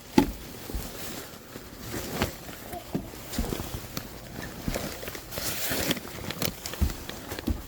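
A person shifting about in an attic: irregular knocks, bumps and rustling as he moves across the space, with a brief hiss of rustling about two-thirds of the way through.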